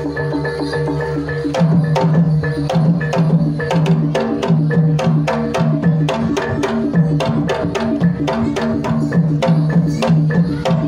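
Javanese gamelan playing, led by a kendang hand drum. Metallophones ring steadily at first. About a second and a half in, the kendang breaks into a fast, busy rhythm of sharp slaps and deep strokes over the ringing bronze.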